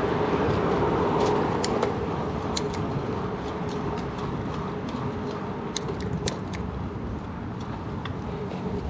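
Surly Bridge Club bicycle on the move: a steady rush of wind and tyre noise, with scattered sharp clicks and rattles. A humming tone fades over the first couple of seconds.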